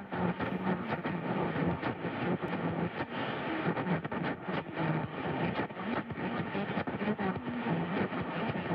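AM radio receiver tuned to 1000 kHz, giving steady static with crackles and garbled, unintelligible chattering from adjacent AM stations bleeding through. Static listeners call this "monkey chatter".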